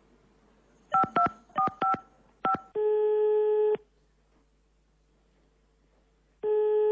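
Telephone number dialled on a touch-tone keypad: a quick run of short two-tone DTMF beeps, followed by the ringback tone as the called line rings, a steady one-second beep heard twice with a pause between.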